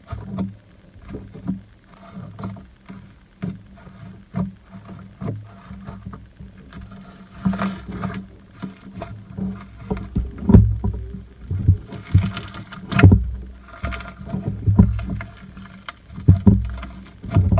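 Slime being squished and poked by hand: an irregular run of short wet clicks and pops over low squelching thuds, louder and busier in the second half.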